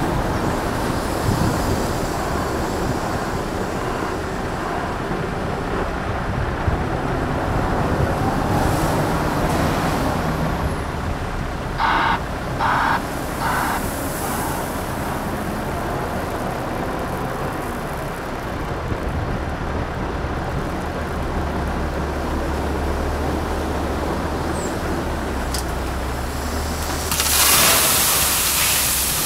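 Volvo wheel loader's diesel engine running as it works beside a truck trailer, with three short hissing pulses about twelve seconds in and a deep drone as it comes back under load. Near the end a bucketful of gravel pours into the steel trailer with a loud rushing rattle.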